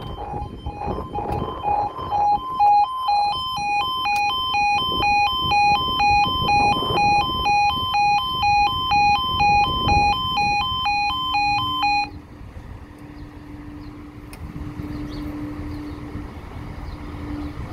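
Level crossing audible warning alarm, first a rapidly pulsed single tone, then an alternating two-tone alarm from about 3 seconds in, cutting off suddenly about 12 seconds in. After that a steady low hum rises from the diesel multiple-unit train approaching the crossing.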